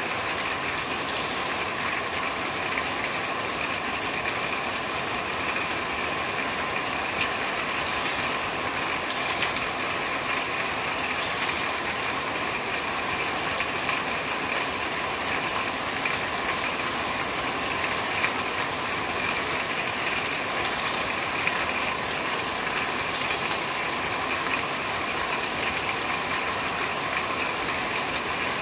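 Steady rain falling on a corrugated roof, a dense even hiss of drops with an occasional louder single hit.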